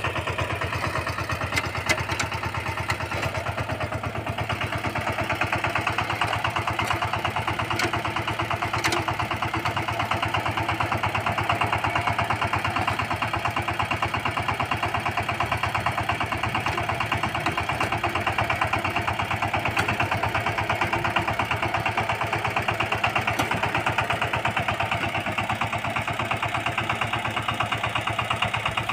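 VST Shakti 130 DI power tiller's single-cylinder diesel engine running steadily with a fast, even beat while its rotary tiller works the soil.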